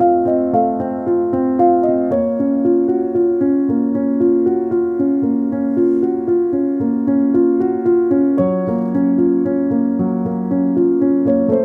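Background piano music: a melody of evenly paced notes over held chords.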